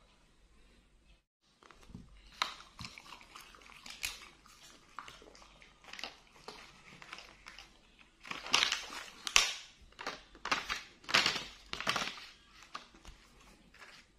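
Clear plastic food packaging being handled and opened: a run of sharp crinkles and crackles, loudest and thickest in the second half.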